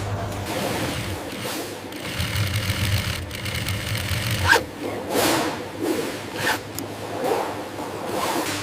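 An industrial sewing machine runs in short spurts between quick swishes and rustles of leather being handled and shifted.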